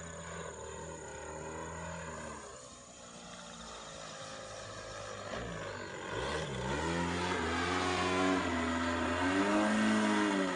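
Single-cylinder two-stroke gas engine (DLE-35RA, 35cc) of an aerobatic RC airplane in flight. It eases off about two and a half seconds in, dips and then climbs in pitch about six seconds in, and runs louder through the last few seconds with its pitch swinging up and down.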